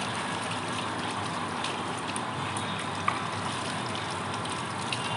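Water running from a garden hose and poured from a mug over a dog's coat as it is rinsed, a steady rushing. A single sharp click about three seconds in.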